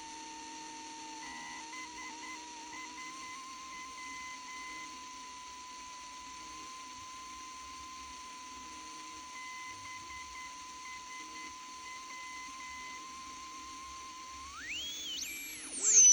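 Radio receiver's speaker giving a steady heterodyne whistle near 1 kHz over hiss between stations, with a fainter broken tone above it. Near the end the whistle glides sharply upward and a higher whistle slides down.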